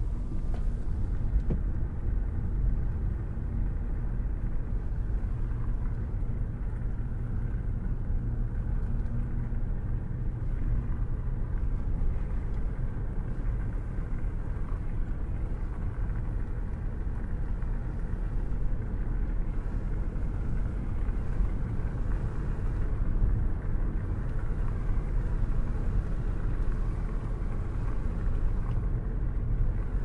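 Car driving at a steady speed with a window open: a steady low rumble of wind buffeting and road noise.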